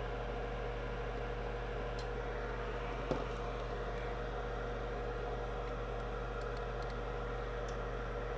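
Steady electrical hum with a faint hiss, and a single faint click about three seconds in.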